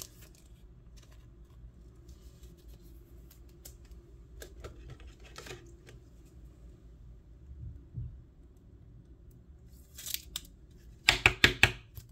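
Trading cards and their pack being handled by hand: a few faint rustles and clicks, then near the end a quick run of four or five sharp, noisy strokes, the loudest sound.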